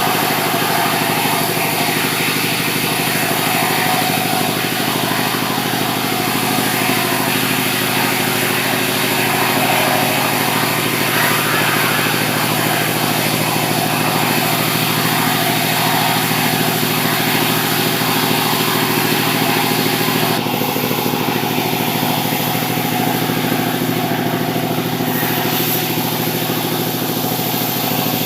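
Sawmill machinery running steadily, a continuous engine-like hum with hiss over it. About 20 seconds in, the higher hiss drops back while the hum carries on.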